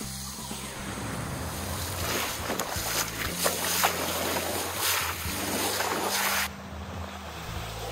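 Bow wave rushing and splashing along the hull of a sailing yacht under way, with wind buffeting the microphone. The splashing is loudest in the middle and the higher hiss cuts off abruptly about six and a half seconds in.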